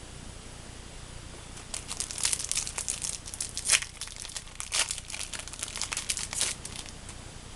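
Foil Yu-Gi-Oh booster pack wrapper being torn open and crinkled by hand: a dense crackle starting about two seconds in and lasting about five seconds, with one sharp loud crack near the middle.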